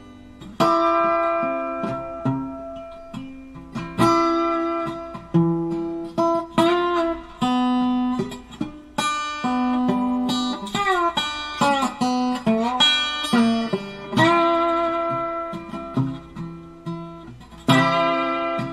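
Background music: a plucked guitar melody, notes struck one after another and left to ring, with several notes gliding in pitch around the middle.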